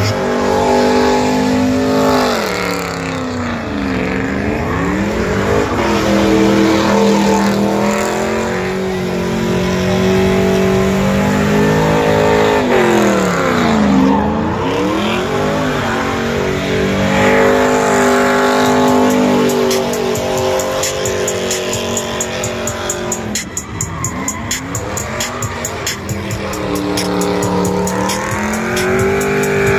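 Pickup truck engine held at high revs through a burnout, tires spinning and squealing in the smoke. The revs drop sharply and climb back up several times.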